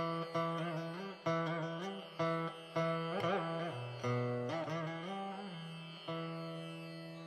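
Background instrumental music in an Indian classical style: a plucked string instrument playing a slow melody of separate notes that slide and bend in pitch, over a steady drone, gently fading near the end.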